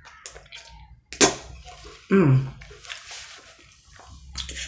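Close-up mouth sounds of a person eating spaghetti: wet slurping and chewing, with a loud smack about a second in and a short hummed "mm" falling in pitch shortly after. Smaller wet clicks and smacks follow near the end.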